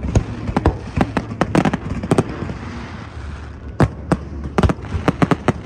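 Aerial fireworks bursting: many sharp bangs in quick, irregular succession, with a lull of about a second midway before another volley.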